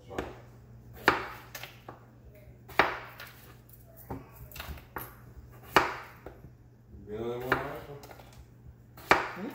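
Knife chopping potatoes on a wooden cutting board: sharp knocks of the blade striking the board every second or two, some louder than others.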